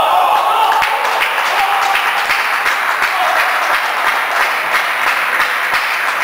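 Audience applauding, many hands clapping steadily at table tennis.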